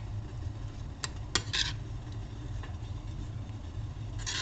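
A spoon stirring grated onion and honey in a bowl: a couple of light clinks about a second in, then short scrapes, with another scrape near the end, over a steady low hum.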